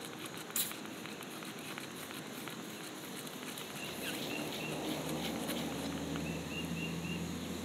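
Outdoor ambience with small high bird chirps in short runs of three. A short sharp sound comes about half a second in, and a low steady hum fades in about halfway through.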